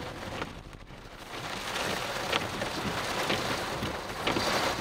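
Rain beating on a moving car's windshield and roof, heard from inside the cabin, with scattered sharper drop impacts. It is quieter for about the first second, then holds steady.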